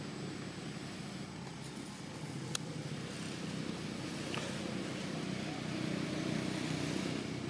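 Steady low engine rumble of a motor vehicle, growing a little louder, with two short sharp clicks.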